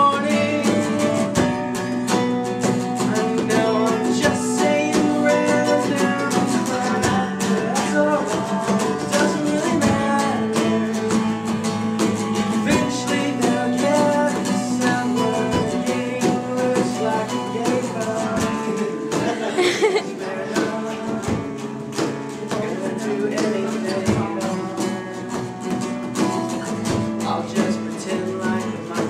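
Acoustic guitar strummed steadily while a man sings an improvised song over it.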